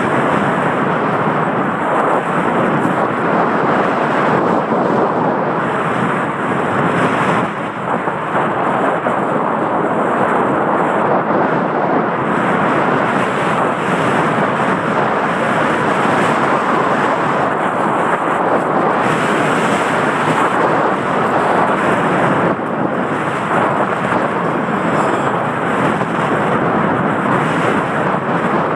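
Wind rushing over a helmet-mounted camera's microphone as a mountain bike rides along a dirt trail: a loud, steady rushing noise with the tyres running on dirt.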